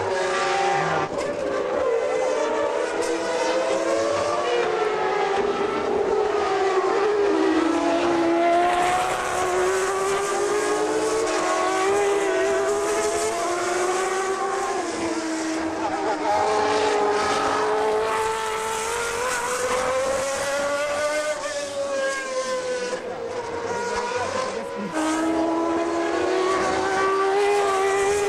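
Several 1992 Formula One car engines heard at once around the circuit, their high-pitched notes rising and falling continuously as the cars brake and accelerate.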